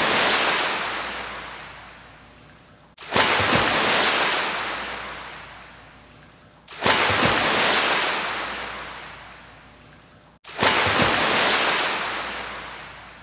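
Ocean waves washing in, four in turn about every three and a half seconds, each swelling up suddenly and fading away slowly.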